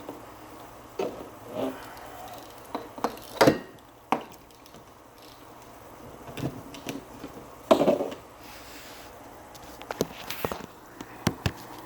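Irregular knocks, clicks and rustling from handling canister-filter hoses and fittings, with two louder knocks about three and a half and eight seconds in, over a faint steady hum.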